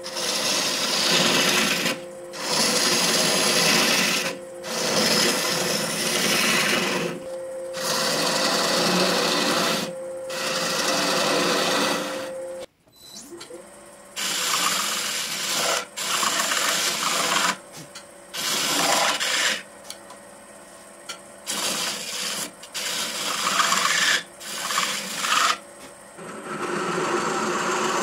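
A hand turning tool cutting into wood spinning on a Oneway lathe in repeated passes, each a scraping burst a second or two long, over the lathe's steady motor hum. About halfway through the sound drops out and the lathe's hum rises in pitch as it spins back up, followed by shorter, lighter cuts.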